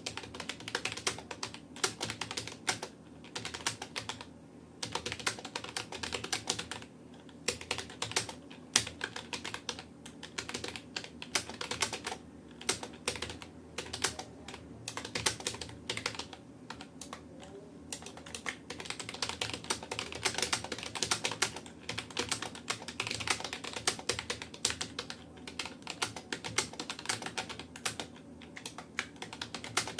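Fast continuous typing on a Rapoo computer keyboard, a quick stream of key clicks at about 65 words per minute, broken by a few brief pauses of under a second.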